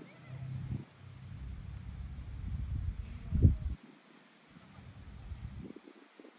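Insects, likely crickets, chirping steadily as one high, constant tone. Low rumbling thuds are mixed in, the loudest about three and a half seconds in.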